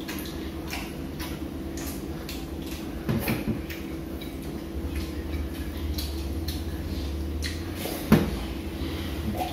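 Spoons clicking and tapping on ceramic plates during a meal, scattered light clicks over a steady low hum, with one louder knock about eight seconds in.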